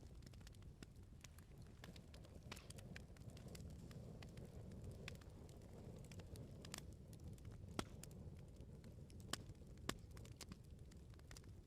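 Bonfire crackling: scattered small snaps and pops over a low steady rumble of the burning wood, with three louder pops in the second half.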